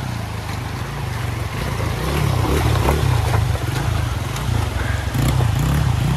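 Honda dirt bike engine running at low revs, the note rising and falling as the bike crawls over rocks through a shallow flowing stream, with rushing, splashing water underneath. It gets louder from about two seconds in as the bike comes past.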